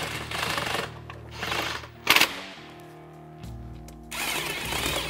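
Power tool driving the bolts of a UTV's inner clutch cover tight, running in several short bursts, over background music.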